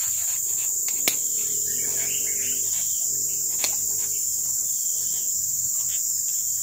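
Steady, high-pitched chorus of forest insects, with two sharp clicks about a second in and after three and a half seconds.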